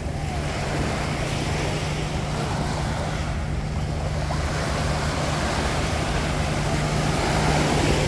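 Surf washing onto a beach, swelling toward the end, over a steady low engine hum.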